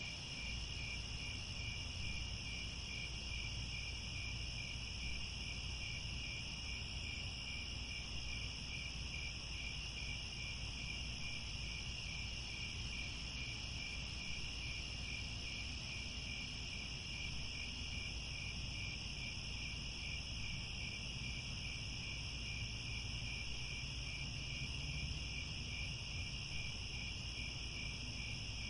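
Crickets chirping in a dense, steady chorus of high, evenly pulsing trills, over a low rumble.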